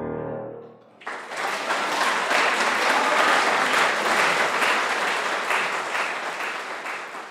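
A grand piano's final chord dies away, then about a second in audience applause starts suddenly and carries on as steady clapping, fading away near the end.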